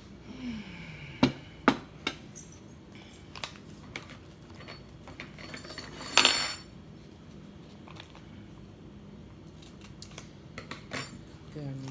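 Dishes and cutlery clinking and knocking as tableware is handled and set down: a few sharp knocks about a second in, a louder ringing clatter around the middle, and small clicks near the end.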